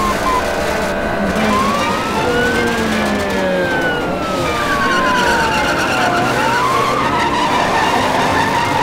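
A vehicle's motor whining over a steady rushing noise, its pitch rising and falling several times as it speeds up and slows down.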